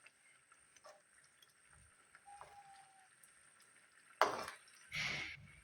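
Quiet kitchen, then near the end two short noises of cookware being handled: a sharp knock followed by a slightly longer scrape.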